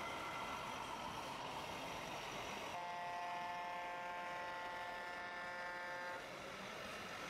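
Truck air horn, from a radio-controlled model truck's sound unit, blowing one steady multi-note blast of about three and a half seconds that starts a little under three seconds in and cuts off sharply, over a steady background hum.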